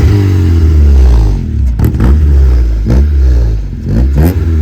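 Honda Ballade 150i's engine revving under a heavy low rumble, its pitch rising and dropping back several times.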